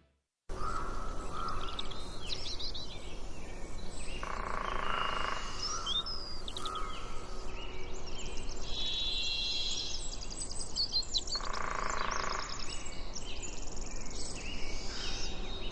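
Wild birds calling and chirping over a steady outdoor background: several voices with quick high chirps and trills, and a lower, fuller call that comes twice, about four seconds in and again near twelve seconds.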